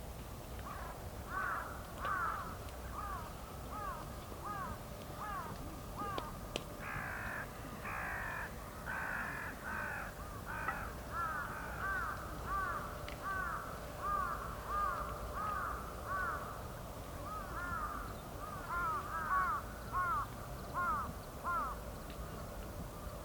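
Crows cawing over and over, many short calls overlapping as from several birds, with one sharp pop about seven seconds in.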